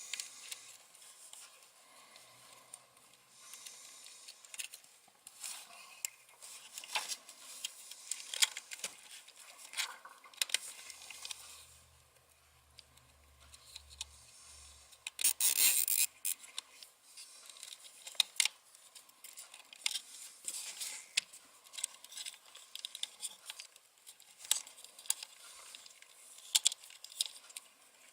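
Hands working a plastic cable tie and small plastic robot-car parts: scattered clicks and rustles, with one louder rasping burst of about a second near the middle.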